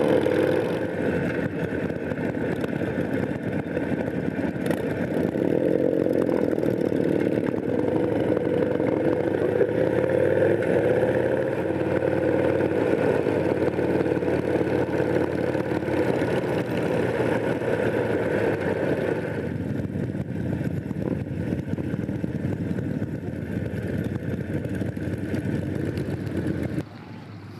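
Harley-Davidson Sportster V-twin motorcycle engine running under way, heard from on the bike, its note rising and falling with the throttle. The sound drops off abruptly about a second before the end.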